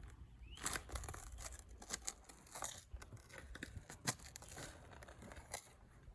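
A digging tool scraping and crunching into soil full of gravel, in a dozen or so irregular strokes.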